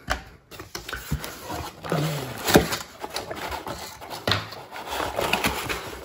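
Cardboard box being opened by hand: flaps pulled back and the box handled, with irregular knocks, scrapes and rustling.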